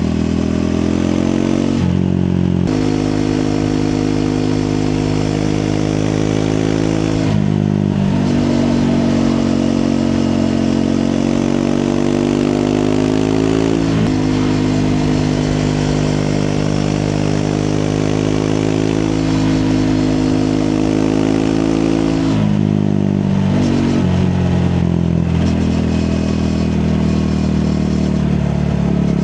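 Triumph Speed 400's single-cylinder engine under way on a ride, its note climbing with speed and dropping at about five gear changes.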